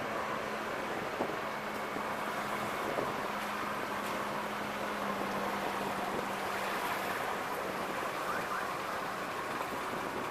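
Steady road and engine noise of a car driving slowly, picked up by a camera on its roof, with a low steady engine hum that fades out about three quarters of the way through.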